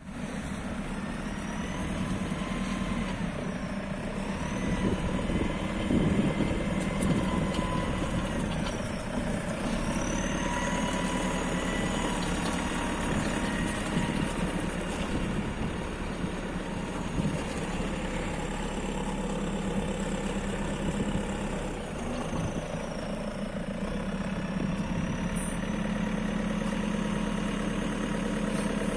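Diesel engine of a JCB 2CX backhoe loader running steadily at idle, with a faint high whine that rises and falls several times.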